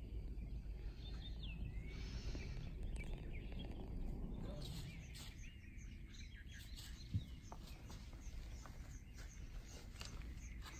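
Outdoor ambience: birds chirping and calling, with short rapid chirps through the second half, over a low steady background rumble. A single sharp click sounds about seven seconds in.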